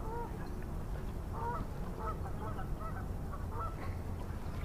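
A flock of geese honking, many short calls overlapping throughout, over a low rumble of wind.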